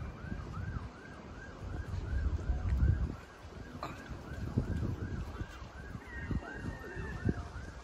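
Emergency vehicle siren on a fast yelp, a tone rising and falling about three times a second, over a low rumble of wind and traffic.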